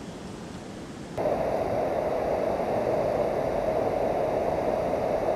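Steady rush of river water pouring over a low dam and churning below it. About a second in it jumps abruptly much louder and stays a steady, dense rush.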